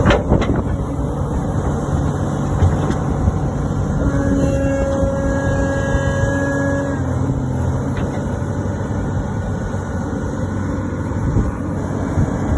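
Komatsu excavator's diesel engine running steadily, with a steady whine added for about three seconds, starting about four seconds in.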